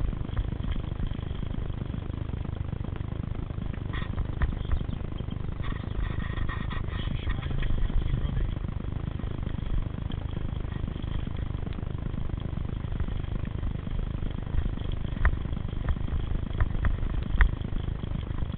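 Mountain bike riding on a dirt singletrack: a steady low rumble of wind on the microphone and tyres rolling over the trail, with a few sharp clicks and rattles from the bike about four seconds in and again near the end.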